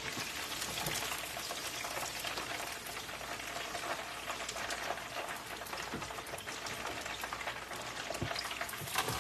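Unbreaded chicken wings deep-frying in a pot of hot oil: a steady crackling sizzle.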